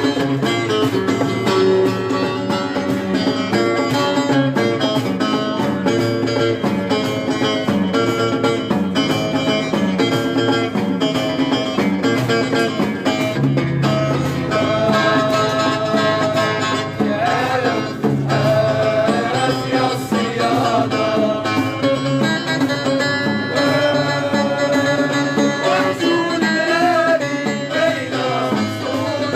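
Live music played on plucked string instruments, with a steady rhythmic bass pattern. A wavering melody line rises above it in the second half.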